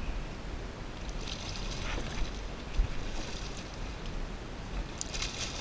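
Wind rumbling on the microphone, with a few brief splashes from a hooked fish thrashing at the side of the boat as it is landed.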